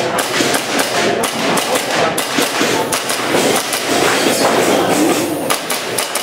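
Airsoft pistol shots during an IPSC practice stage: a string of sharp clacks at irregular intervals over a hall's background noise.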